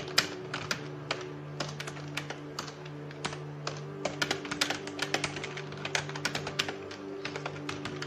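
Typing on a computer keyboard: rapid, irregular key clicks. Underneath runs background organ music with long held notes.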